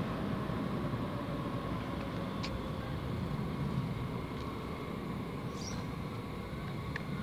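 Red S-Bahn electric multiple unit pulling away along the far platform track: a steady low rumble with a faint even motor hum, fading slightly as it moves off.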